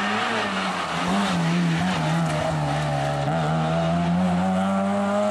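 Rally car engine running hard under load, its revs wavering and dipping through the first half, then climbing steadily through the second half.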